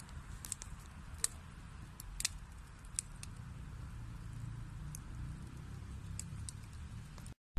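Wood fire burning in a fireplace: a steady low rumble of flames with sharp, scattered crackles and pops from the burning logs, the loudest pops about a second, two seconds and three seconds in. The sound drops out for a moment near the end.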